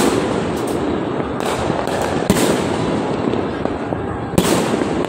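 New Year fireworks going off: sharp bangs of aerial shells every second or two, the loudest near the end, over a continuous crackle and rumble of many fireworks and firecrackers exploding at once.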